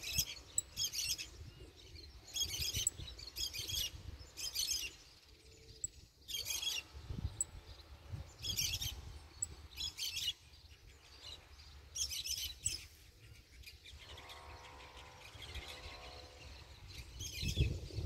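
Saffron finch (canário-da-terra) singing: short phrases of quick, high notes, about a dozen of them, coming at irregular intervals with pauses in between.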